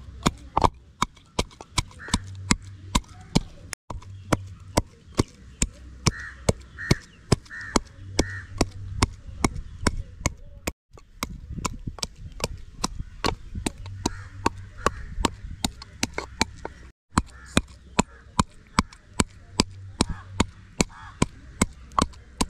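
Knife chopping on a cutting board: sharp, regular strokes about two a second. Short repeated animal calls sound faintly in the background.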